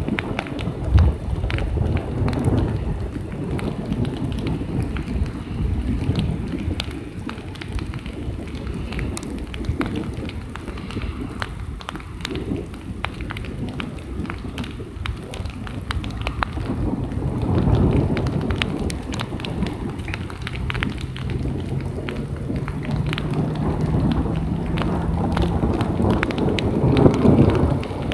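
Night thunderstorm: steady rain with many sharp drop ticks close by, under a low rumble of thunder that swells twice, about two-thirds of the way through and again near the end.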